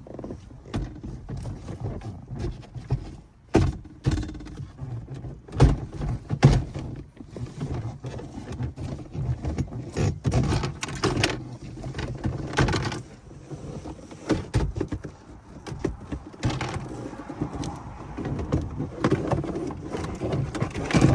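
Irregular clicks, knocks and rattles of a car's plastic center console trim and hand tools being handled as the console assembly is worked off around the automatic shifter, over a low steady hum.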